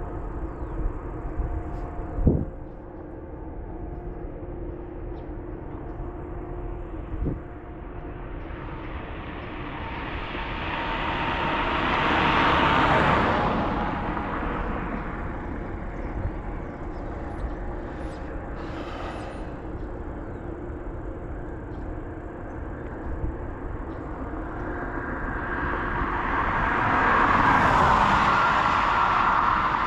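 Two road vehicles pass by one after the other, their tyre and engine noise swelling and fading away. The first peaks about thirteen seconds in and the second near the end; there are two sharp knocks in the first eight seconds.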